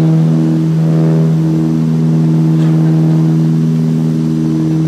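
Propeller airliner's engine and propeller drone heard from inside the cabin: a loud, steady hum with one strong low tone and several steady overtones above it.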